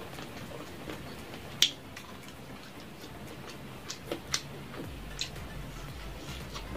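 A person eating fried chicken close to the microphone: scattered sharp mouth smacks and clicks while chewing, the loudest about one and a half seconds in. A low steady hum runs underneath.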